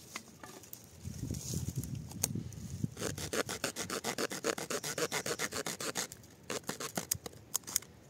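The saw blade of a Victorinox Ranger pocketknife cutting wood. Softer rubbing comes first, then about three seconds in a fast, even run of short saw strokes at roughly eight a second, followed by a few sharp clicks.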